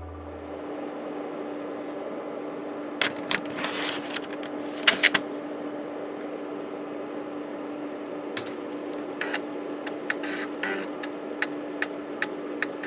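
A Panasonic JU-257A135P 3.5-inch floppy disk drive running with its cover off: the disk spindle motor keeps up a steady hum while the read/write head's stepper motor seeks across the tracks in irregular clicks and short buzzing bursts.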